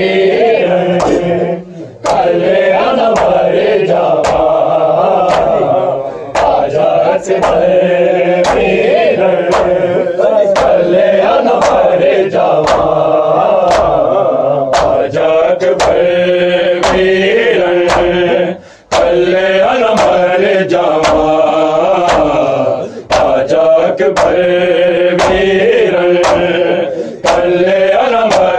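Male voices chanting a Punjabi noha lament in long, held lines, with short breath pauses between phrases. Under it runs a steady beat of about three strokes every two seconds, typical of matam chest-beating keeping time with the noha.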